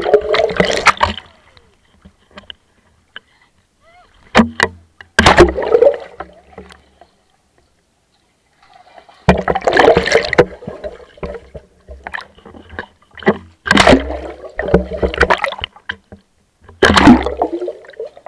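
Water splashing and churning around a GoPro held underwater in a swimming pool, muffled through its waterproof housing. It comes in bursts of a second or two with near-silent stretches between them.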